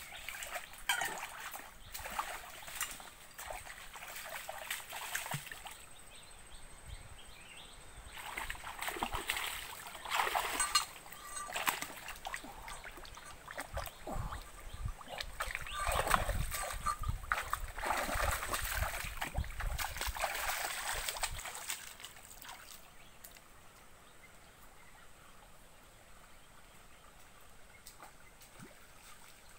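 Splashing in a shallow rocky stream as someone wades barefoot and reaches into the water, irregular splashes over the running trickle of the stream. The splashing dies away about three-quarters of the way in, leaving the quieter trickle.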